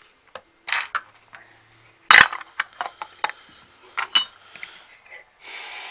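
Small metal and plastic parts clinking and knocking on a workbench as a power tool is taken apart: a scattered series of sharp clinks, the loudest about two seconds in. A steady hiss starts near the end.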